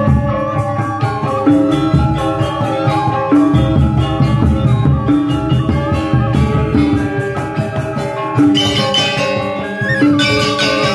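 Balinese gamelan music: metal-keyed percussion ringing over hand drums, with a low note struck at a steady pulse about every second and a half. The playing grows brighter and denser near the end.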